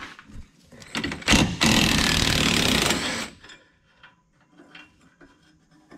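Impact wrench run in a single burst of about a second and a half, after a few sharp metal knocks.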